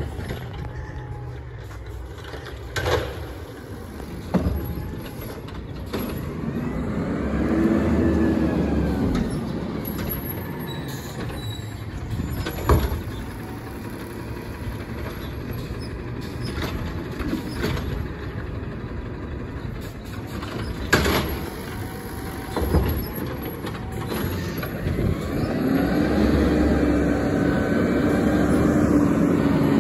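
Automated side-loader garbage truck at work: the diesel engine runs and revs, with a whine that rises and falls as the hydraulic arm lifts and lowers, and several sharp bangs as carts are dumped and set down. The engine grows louder near the end.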